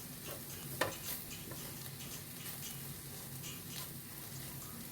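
Spoon stirring onion masala frying in coconut oil in a pan, with a faint sizzle and light ticks of the spoon against the pan, one sharper tap about a second in; the chilli powder has just gone in to be sautéed.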